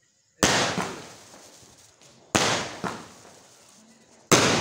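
Aerial fireworks bursting in a steady series: three loud bangs about two seconds apart, each with a fading tail, and a smaller pop just after the second.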